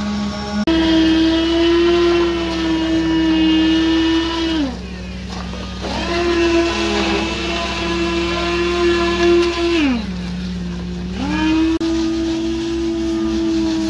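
Whine of concrete-pour machinery: a steady pitched hum that glides up, holds for a few seconds and glides back down, three times, over a lower steady engine drone.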